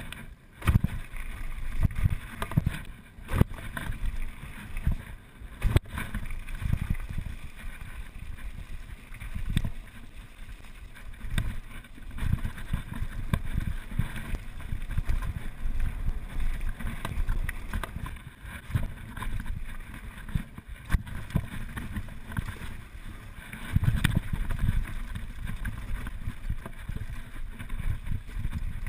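Mountain bike riding fast downhill over dirt and gravel: wind buffeting the action camera's microphone, with tyre rumble and the bike rattling, and a few sharp knocks from bumps.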